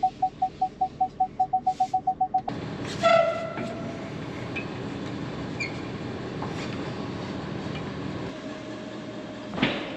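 Pickup truck's rear parking sensor beeping fast and evenly while backing up to a trailer hitch: the rapid rate means the obstacle behind is close. The beeping stops about two and a half seconds in. A metal clank that rings briefly follows, then a steady hum, with a knock near the end.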